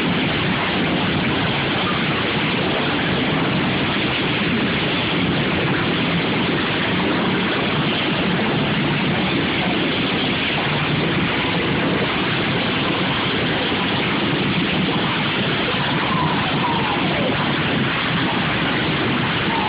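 Many racing lawn mower engines running at once during a lawn mower derby heat, blending into one loud, steady mass of engine noise. Faint rising and falling engine pitches come through about three-quarters of the way in.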